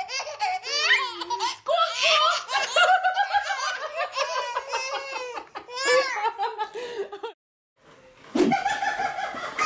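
Two babies laughing together in long, repeated belly laughs and squeals, stopping abruptly after about seven seconds. After a brief silence, a thump and other sounds follow near the end.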